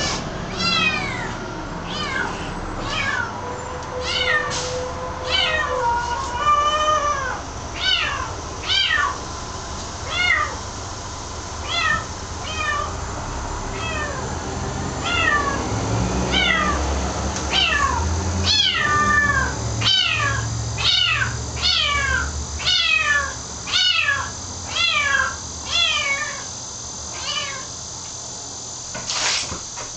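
A young kitten meowing over and over, about one high cry a second, each call falling in pitch. The cries are noisy and insistent, the calling of a kitten unsettled in an unfamiliar new home.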